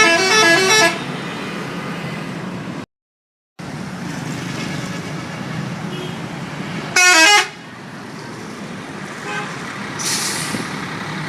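Telolet bus horn, a multi-tone musical horn, playing a quick stepping tune for about a second, then a second short burst of falling notes about seven seconds in, over steady bus engine and traffic noise. The sound drops out briefly around three seconds, and a short hiss comes near the end.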